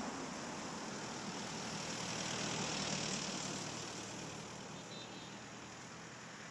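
Cars driving past on a road, engine and tyre noise that swells to a peak about three seconds in and then fades away.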